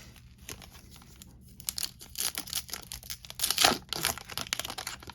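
A foil trading-card pack wrapper being torn open and crinkled by hand, the irregular crackling starting about a second and a half in and loudest toward the end.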